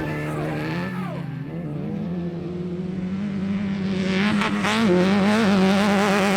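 Off-road race car engine running hard, its pitch falling about a second in, then holding and wavering up and down as the revs rise and fall.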